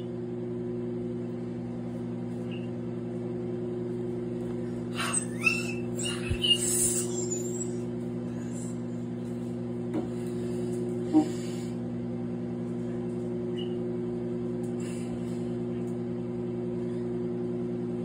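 Microwave oven running with its steady electrical hum. A few knocks and rustles come about five to seven seconds in, and a single sharp click near eleven seconds.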